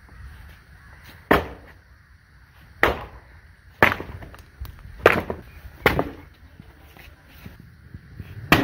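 Six sharp strikes at irregular intervals of about one to two and a half seconds, with a longer gap before the last, over a faint outdoor background.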